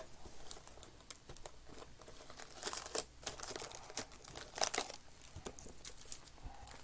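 Plastic wrapping on trading-card boxes and packs crinkling and tearing as they are opened, in short crackles with small clicks, loudest about three seconds in and again near five.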